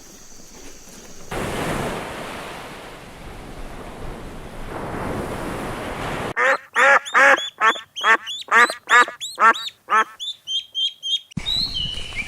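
A duck quacking in a quick, regular series of about three quacks a second for several seconds, after a stretch of steady noisy background. Fainter, higher calls follow near the end.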